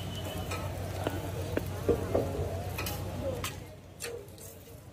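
Metal spatula clicking and scraping on a flat iron griddle as a stack of flatbreads is shifted, with a few sharp taps over a steady low hum and faint sizzling.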